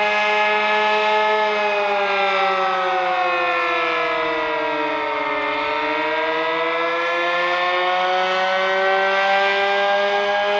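Sentry 15V2T-B two-tone storm siren sounding its attack signal: the two-note chord slides down in pitch from about a second and a half in, bottoms out around the middle and climbs back up. Its batteries are weak, so it runs short of full strength.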